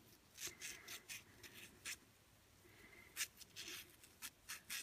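Faint, irregular scratchy strokes of a scouring pad scrubbing the edges of a fired enamel-on-copper piece, cleaning it up after firing.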